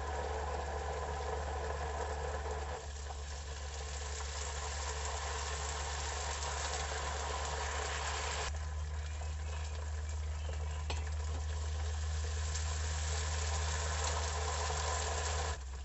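Ghewar batter frying in a pot of hot oil: a steady, busy sizzle with a low hum underneath. The sizzle steps down slightly about three seconds in.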